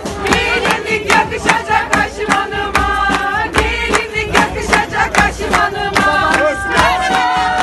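A brass band (bando) playing a lively folk dance tune, sustained horn melody over a steady drum beat, with the crowd clapping along.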